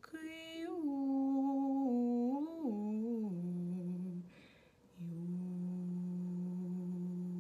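A woman humming a Tatar lullaby: a slow melody stepping down in pitch, a breath about four seconds in, then one long low held note.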